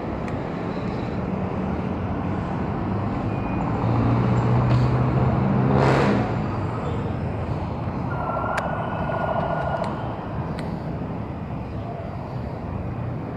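City road traffic, with a motor vehicle's engine passing close and loudest about four to six seconds in. A higher-pitched noise follows about eight seconds in.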